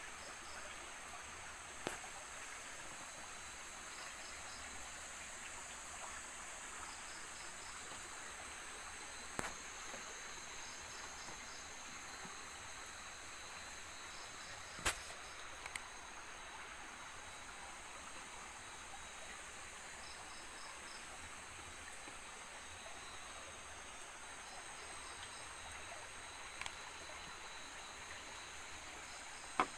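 Forest insects at night: a steady high insect drone, with short chirps in groups of three or four repeating every few seconds. A few sharp clicks cut through, the loudest about halfway.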